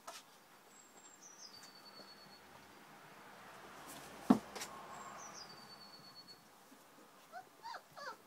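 Three-week-old puppies giving short, high, falling squeaks and whimpers near the end. There is a single sharp knock about four seconds in.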